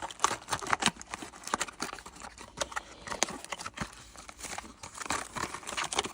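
Plastic packaging crinkling and rustling as lock parts are handled, with many small irregular clicks and knocks.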